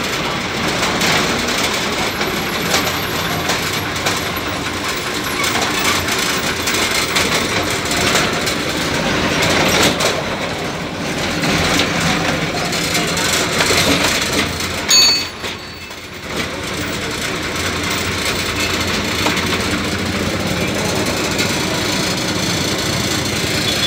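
Ashok Leyland state-transport bus's diesel engine running at road speed, heard from the driver's cabin beside the engine cover, mixed with steady road noise. About fifteen seconds in there is one short sharp sound, followed by a moment that is quieter.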